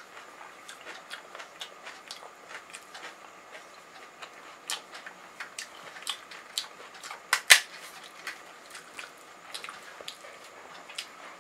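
Close-miked chewing of crisp fried puri shells: scattered short crunches and mouth clicks, with one louder crack about two-thirds of the way through.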